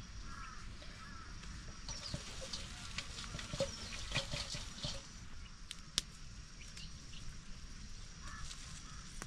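Birds calling in short chirps, busiest in the middle, with a few sharp clicks or knocks in between.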